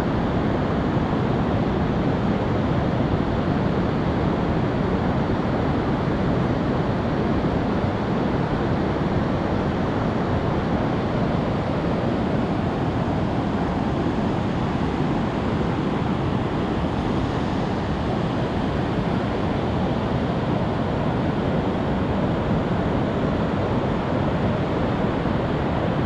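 Steady rush of ocean surf breaking on a sandy beach, mixed with wind on the microphone, even throughout.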